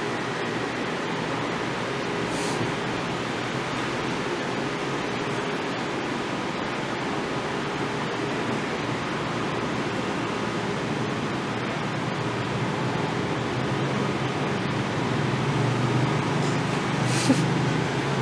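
Steady, even hiss of background noise, with a faint low murmur building in the last few seconds.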